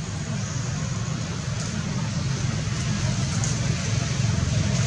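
Steady outdoor background noise: a low rumble with an even hiss over it, without a distinct event.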